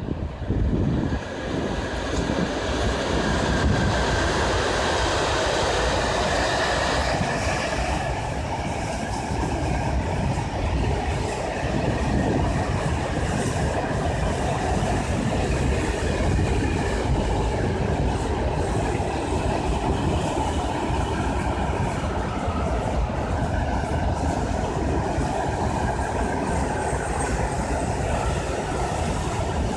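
A freight train of open coal wagons passing close by, hauled by a PKP ET22 electric locomotive at its head. The rumble and clatter of the wagons' wheels on the rails run steadily throughout.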